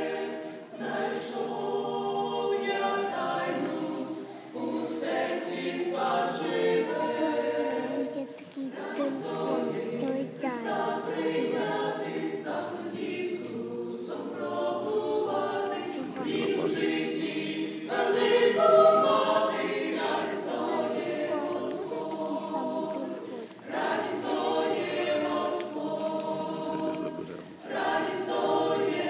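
A small mixed group of female and male voices singing a hymn-like song in harmony, in phrases with brief pauses for breath.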